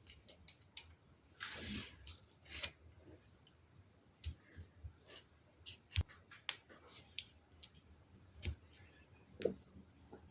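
Plastic LEGO Technic pieces clicking and tapping as they are handled and pressed together, irregular faint clicks with a couple of short rustles about two seconds in.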